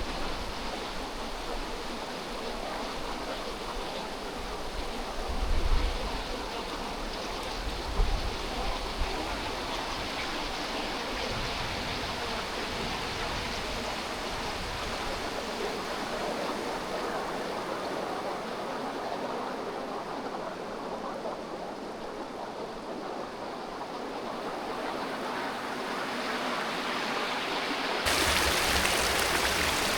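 Rushing water of a creek or waterfall, a steady even hiss with a few low thumps about five and eight seconds in. Near the end it turns abruptly louder and brighter.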